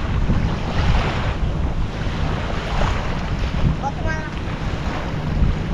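Strong wind buffeting the microphone, a heavy fluttering rumble.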